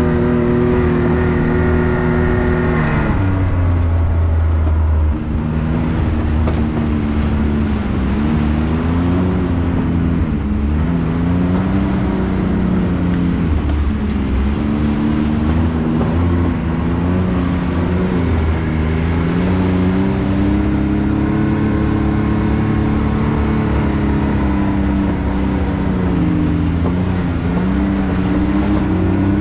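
Can-Am Maverick X3 side-by-side's three-cylinder engine running under changing throttle, its revs rising and falling, with a longer, steadier pull in the second half.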